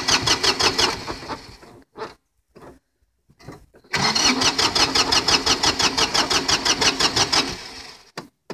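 A Kubota compact tractor's diesel engine being cranked by its starter in two tries, a rapid even chugging that never catches. The first try ends about a second in and the second runs from about four seconds in until near the end. It fails to fire because it is being cold-started without the glow plugs preheating it.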